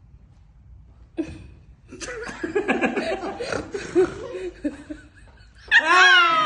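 Laughter starting about two seconds in, then a sudden loud shriek near the end.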